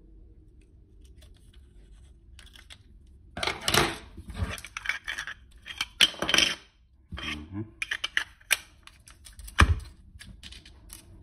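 Scissors snipping the film leader and being set down on a wooden desk, followed by clicks and scrapes of a metal Wollensak stereo camera being handled, with one heavy knock near the end as it is put down.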